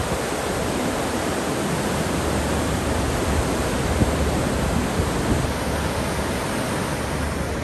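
Steady rushing noise of a cruise ship's wake churning behind the stern, mixed with wind.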